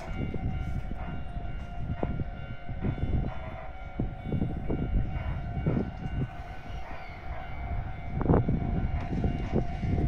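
Yoro Railway 7700-series electric train standing at the platform, its onboard equipment giving a steady hum under a low rumble, with irregular knocks and thuds, the loudest about eight seconds in.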